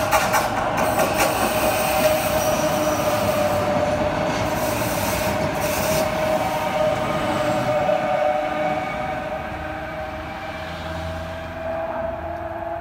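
Stadler ABe 4/12 low-floor electric multiple unit on metre-gauge track running past below, its wheels rumbling under a steady high tone. The sound is loud for the first eight seconds or so, then fades as the train moves away.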